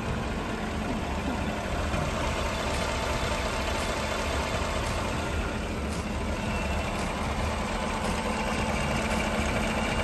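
Freshly overhauled 5.3 L L83 V8 in a 2014 Chevrolet Silverado 1500 idling steadily. Its cylinder deactivation is deleted with a DOD-delete camshaft, so it runs on all eight cylinders.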